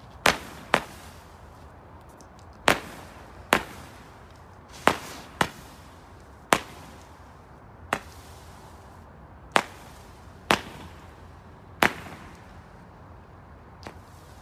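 Skycrafter Thermo Shock firework firing shot after shot: about a dozen sharp bangs at uneven spacing, mostly one to two seconds apart, each with a short echoing tail, the last one faint.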